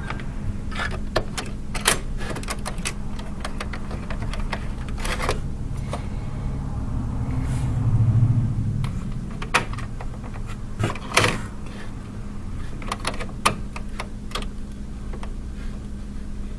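Scattered sharp clicks and light taps of hands working on a motherboard as processors are seated in their sockets and the socket retention hardware is closed, over a steady low hum.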